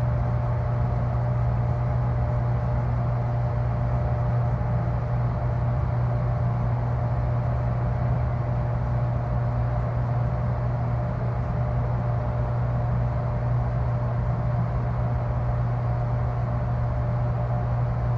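Deep, steady mechanical drone of a freezer unit: a strong low hum with a faint thin tone above it, unchanging throughout.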